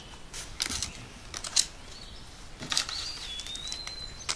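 Light rustles and taps of paper cut-out puppets being slid and knocked about a cardboard toy theatre. A faint, thin, high tone holds for about a second and a half near the end.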